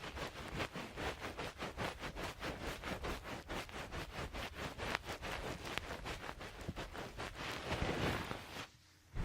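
Quick soft patting on a towel against the microphone, about five or six muffled taps a second, turning into a smoother rubbing swish near the end and stopping briefly.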